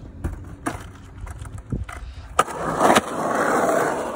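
Skateboard dropping in on a rough concrete bank: a few light clicks, then a sharp clack about two and a half seconds in as the wheels hit the slope. The wheels then roll loudly over the rough concrete for about a second and a half, stopping near the end.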